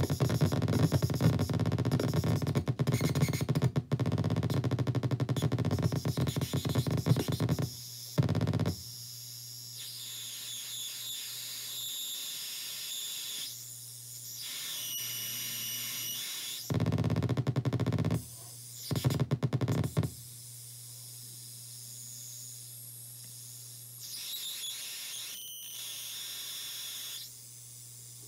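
Circuit-bent noise box with light-sensitive controls, giving harsh static and high and low tones. Loud, dense static runs for about the first eight seconds. Then it drops to a quieter steady low hum with high whistling tones, cut by a few short loud bursts of static.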